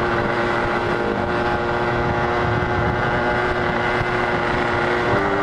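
Yamaha RX-King 135cc two-stroke single-cylinder motorcycle engine running at a steady cruising speed while being ridden. The engine note shifts slightly near the end.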